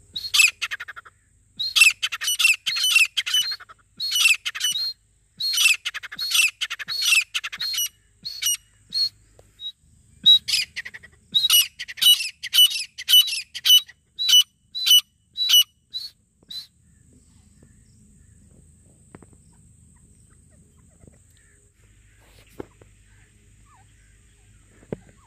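Grey francolin calling: loud, high, quickly repeated notes in a run of bursts with short gaps between them. The calling stops about two-thirds of the way through, leaving a faint low hum.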